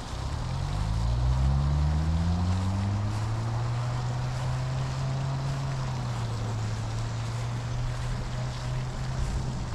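A motor's drone that climbs in pitch over the first few seconds as it speeds up, then holds a steady pitch until it eases near the end.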